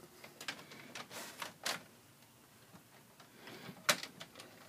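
Scattered light clicks and knocks of a circuit breaker being handled in a metal breaker panel, with one sharp click near the end.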